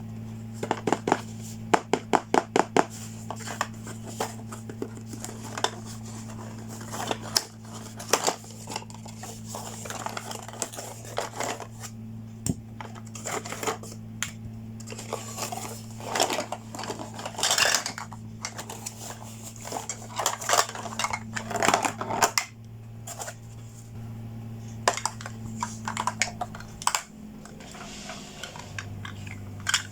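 Small hard plastic toy pieces clicking, tapping and clattering as they are handled and unpacked from a toy makeup and styling playset, with a quick run of clicks in the first few seconds. A steady low hum runs underneath.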